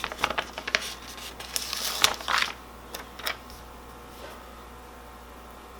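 Paper and sticker sheets being handled: crinkling and rustling with a few light taps over the first three seconds, then only faint room hiss.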